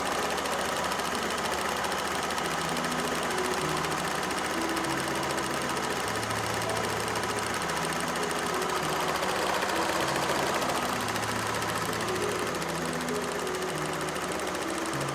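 Fiat 500's 0.9 TwinAir two-cylinder turbo petrol engine running steadily with a fast, even ticking, after its no-oil-pressure, no-start fault was fixed.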